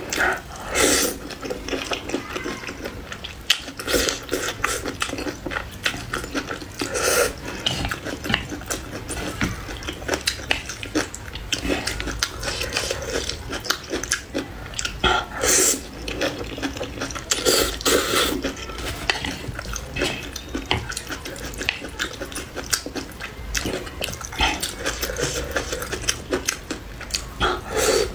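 Close-miked eating: slurping noodles and chewing with wet mouth sounds, in irregular bursts with clicks between them.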